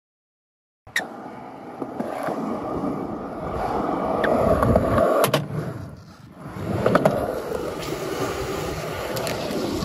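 A fingerboard rolling over a skatepark ramp close to the microphone, with a few sharp clacks. The rolling swells, dips away for a moment past the middle, and picks up again.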